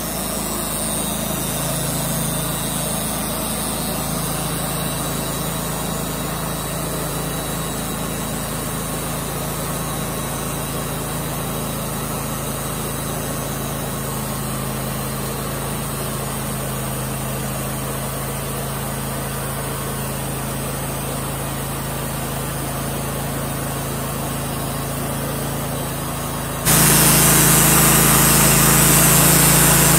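Portable band sawmill's air-cooled gas engine running steadily while the band blade saws through a walnut log. It becomes abruptly louder near the end.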